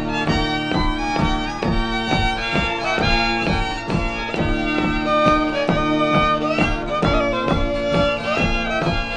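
Old-time Native and Métis fiddle music: a fiddle playing a melody over a steady beat of about three strokes a second.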